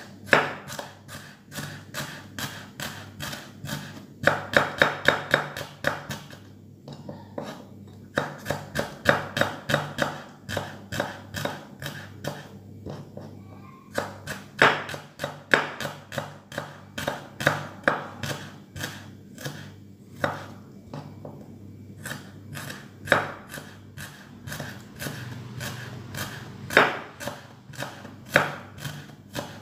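Kitchen knife thinly slicing shallots on a wooden cutting board: quick blade taps on the wood, several a second, in runs broken by short pauses.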